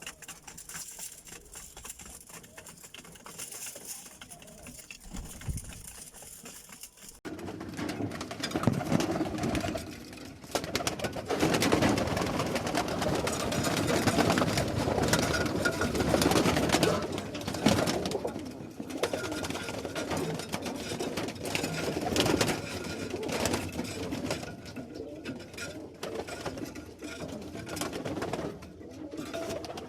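A flock of roller pigeons cooing, fainter at first, then louder and fuller from about seven seconds in.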